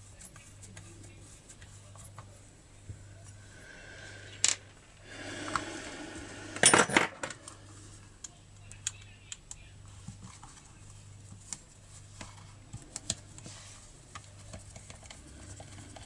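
Small metal parts and a screwdriver clicking and clinking while parts of a chainsaw are fitted and screwed down. A sharp click comes about four seconds in, then a louder rattle and clatter of parts about five to seven seconds in, then lighter ticks.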